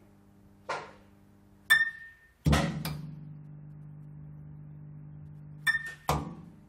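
Neon tube light flickering: a low electrical hum broken by sharp clicks that ring briefly. The hum jumps louder as the tube catches, about two and a half seconds in, and drops back after another pair of clicks near the end.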